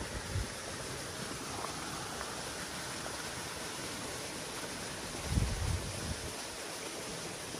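Steady rushing outdoor background noise, with a few low thumps just after the start and again around five seconds in.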